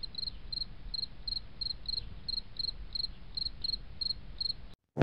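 A cricket chirping in an even rhythm, about three short high chirps a second, over a faint low rumble; it cuts off abruptly just before the end.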